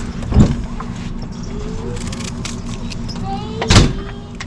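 Wind buffeting the microphone: a steady low rumble with two loud thumps, about half a second in and near the end.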